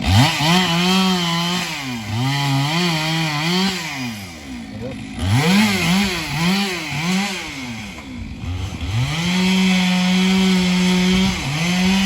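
Chainsaw revving up and down in quick throttle pulses, then held at steady high revs from about nine seconds in, with a brief dip near the end.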